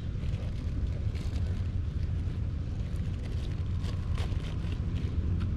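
Kitten eating from a plastic tub, with small scattered chewing and lapping clicks, over a steady low rumble of wind on the microphone.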